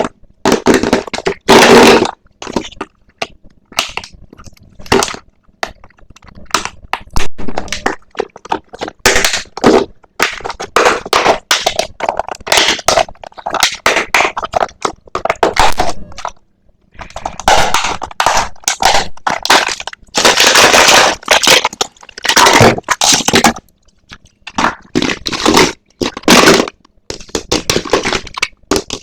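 Blind-box toy packaging being handled and opened close to the microphone: crinkling and crackling in irregular bursts with short pauses.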